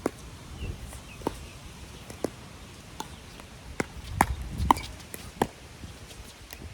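Pickleball rally: sharp pops of paddles hitting the plastic ball, about eight in all, roughly a second apart, some coming quicker around four to five seconds in. Wind rumbles on the microphone underneath.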